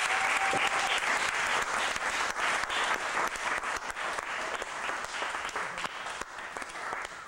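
Audience applauding, breaking out loud at once and gradually thinning out toward the end.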